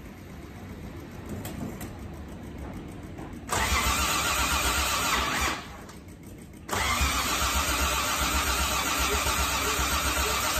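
Starter motor cranking a 1960s Toyota Crown's carbureted six-cylinder engine in two bursts, about two and four seconds long with a short pause between. The starter turns the engine over briskly but the engine does not fire or catch: a no-start, with spark at all six plugs and the fuel level already checked.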